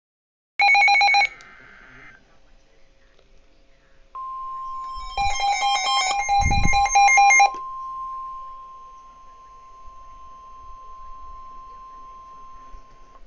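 Electronic alert tones. A loud burst of beeping about half a second in, then from about four seconds a single steady tone near 1 kHz held for about nine seconds: the NOAA Weather Radio warning alarm that comes before a new warning is read. For about two seconds in the middle, a louder rapid electronic warbling with a low thump plays over the steady tone.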